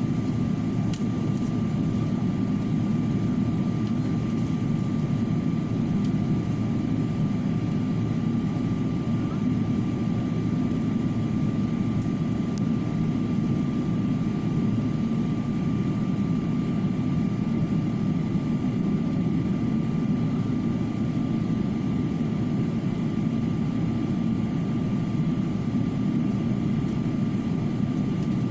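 Jet aircraft engines running steadily: an even low rumble with a thin, constant whine over it and no rise or fall.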